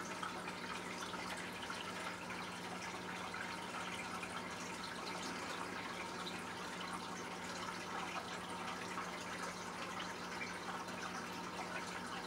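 Aquarium water trickling and dripping steadily, with a constant low hum underneath.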